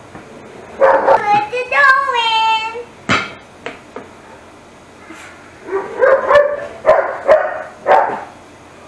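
A dog whining and yipping in bursts, with high calls that slide downward, and a single sharp knock about three seconds in.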